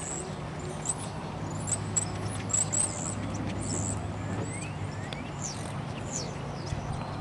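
Small birds chirping, many short high-pitched chirps with a few quick falling notes, busiest in the first three seconds. A steady low hum runs underneath.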